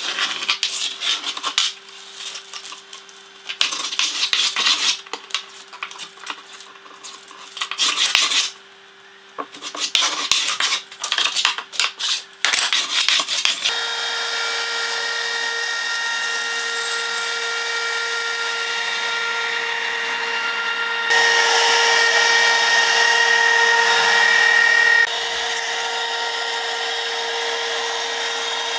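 For the first half, irregular sharp scraping and clicking from hand work along the edge of a veneered oak panel. Then a compact trim router starts and runs with a steady high whine as it trims the veneer along the panel edge, louder for a few seconds while it cuts.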